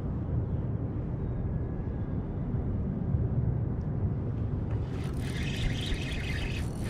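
A steady low rumble, like wind on the microphone, throughout. About five seconds in, a spinning reel starts being wound in with a fine, rapid whirr.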